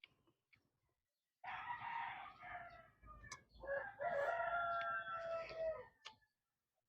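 A rooster crowing once: one long call starting about a second and a half in, with a short break partway, its last part held and falling slightly before it stops near the end.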